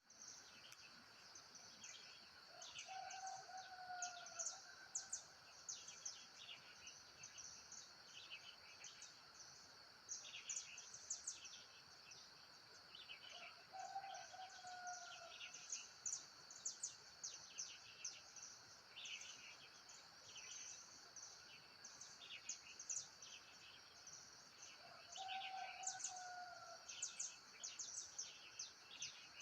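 Faint bush ambience: a steady high insect drone under constant bird chirping, and a lower, slightly falling call about a second long that comes three times, roughly eleven seconds apart.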